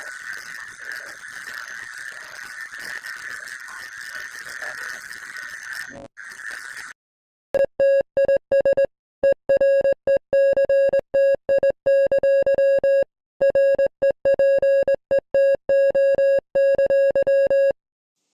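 Electronic emergency-alert signal. First comes a harsh, hissy noise for about seven seconds. After a short break comes a buzzy beeping tone, switched on and off in beeps of uneven length for about ten seconds, and then it stops.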